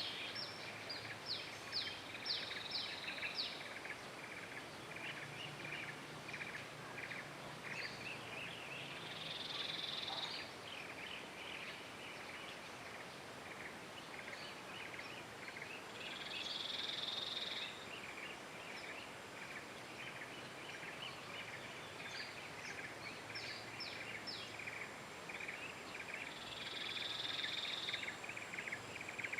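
Forest ambience: a dense chorus of rapid high chirps from birds and insects, with a short high call that comes back about three times, roughly every eight seconds.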